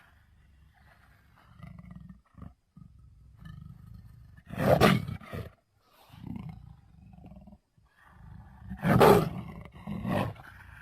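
Designed Velociraptor sound effects: two loud roaring calls about four seconds apart. Each is followed by a shorter, weaker call, over a quieter low rumble.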